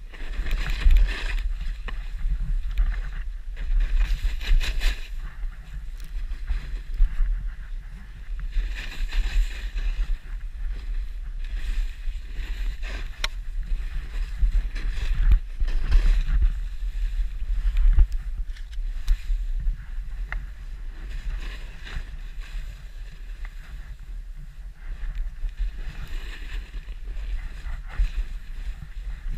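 Wind rumbling on the microphone during a fast descent through powder snow, with surges of hissing every few seconds as turns slide and spray through the snow.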